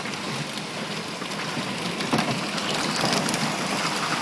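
Golf-ball-sized hail pelting down, a dense clatter of many separate stone impacts over a steady rush of rain and hail; it grows louder about two seconds in.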